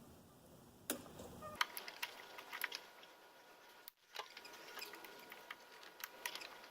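Faint, irregular light metallic clicks and taps: a hand tool working at a snap ring on the fifth-gear assembly of a manual transmission.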